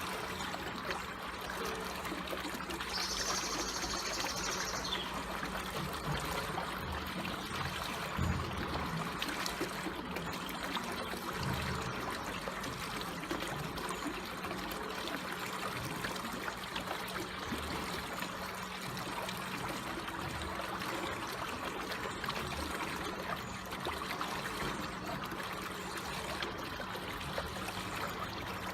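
Water flowing slowly and trickling steadily, like a small stream.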